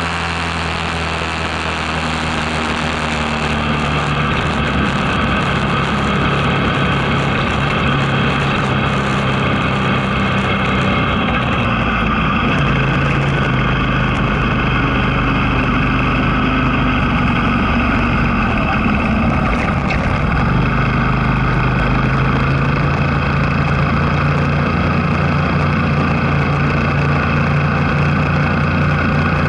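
Vehicle engine running steadily under onboard-camera wind and road noise. Its drone shifts up and down in pitch several times as the speed changes, and tyres hiss on the wet road.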